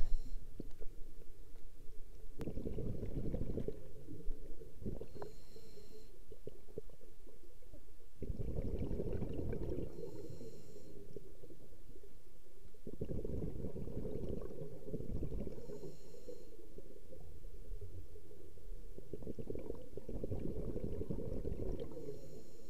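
Scuba diver breathing through a regulator underwater: a short high hiss on each inhale and a low burst of exhaled bubbles lasting two to three seconds, four breaths about five to six seconds apart.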